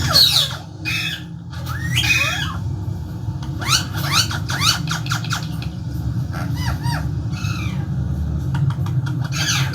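Parrot squawking and screeching in a series of short, harsh calls, with a fast run of sharply rising notes near the middle, over a steady low hum.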